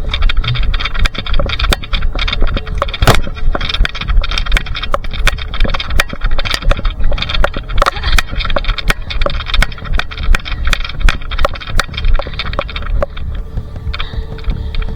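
Rustling and jostling noise from a body-worn camera, with many irregular clicks and a steady low rumble; the rustling thins out near the end.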